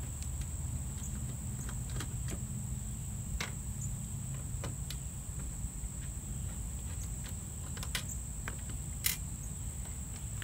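Light, scattered clicks and ticks of a 3D-printed plastic bumper strip being handled and fitted into a car's front bumper, with one sharper click near the end. A steady high-pitched insect drone runs underneath.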